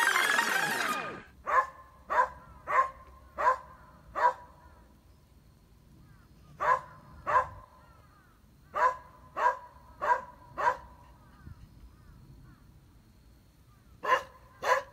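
A beagle barks in short, sharp alert barks, in bursts of two to five, at a large black bird perched on a treetop. A synthetic whooshing sound effect cuts off about a second in.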